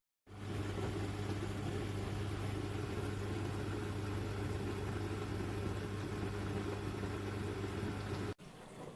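Steady low mechanical hum of a running motor, even throughout, cut off abruptly near the end.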